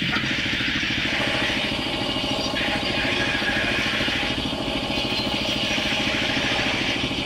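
Sawmill machinery running steadily: a fast, low, engine-like pulsing with the higher hiss of a saw cutting timber that shifts in strength a few times as the wood is fed.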